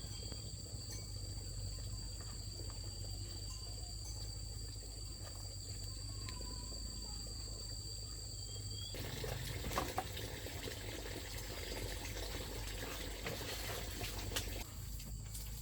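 Insects chirring in steady, high-pitched tones over a low, even rumble. About nine seconds in, the sound changes abruptly: one of the tones drops out and the background turns noisier.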